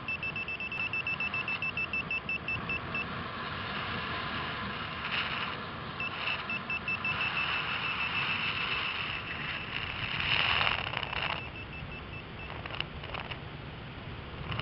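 Paragliding variometer beeping in rapid short high tones, the sound it makes while the glider is climbing in lift, over wind rushing across the microphone. The beeping stops a few seconds in, resumes, and thins out near the end, with a louder gust of wind in the middle.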